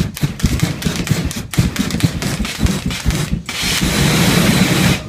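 Flame-effect poofers on a giant metal octopus sculpture firing in rapid, uneven bursts. About three and a half seconds in they give way to one long, loud, steady rush of flame from all the arms and head together, which cuts off suddenly at the end.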